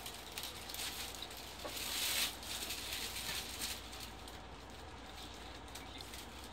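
Toei 10-000 series subway car running, heard from inside the cabin: a steady low rumble with rattling and small clicks, and a brief louder hiss about two seconds in.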